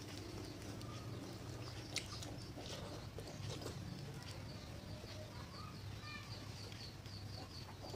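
Quiet eating: a metal spoon scraping and tapping in a styrofoam bowl, with a sharp click about two seconds in, and soft chewing. Small birds chirp repeatedly in the background over a steady low hum.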